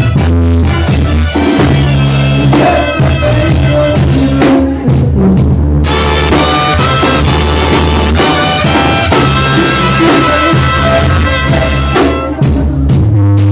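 Loud music with a drum kit and a heavy bass line.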